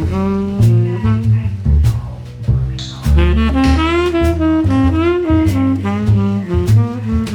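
Background jazz music: a saxophone plays a melody over a walking double bass and a drum kit.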